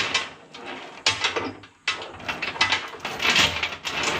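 Heavy steel chain rattling and clanking as it is pulled and dropped against the steel deck of a bush hog, with a sudden louder clatter about two seconds in.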